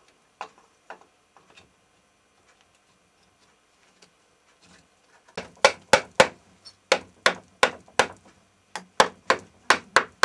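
Mallet tapping the outer cover of a BSA three-speed motorcycle gearbox to seat it: a few light knocks, then about five seconds in a run of some fourteen sharp taps, two to three a second.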